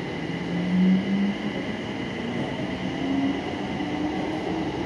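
BTS Skytrain electric train heard from inside the car as it pulls out of a station: steady running noise with a traction-motor whine whose pitch climbs gradually as the train gathers speed.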